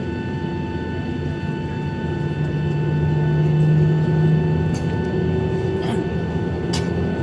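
Cabin noise inside a Boeing 737-800: a steady low hum with thin whining tones that swells a little about three to four seconds in, with two short clicks near the end.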